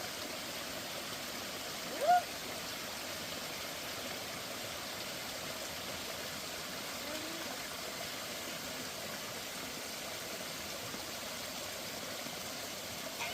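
Steady rushing of a creek, with one short, loud rising call about two seconds in.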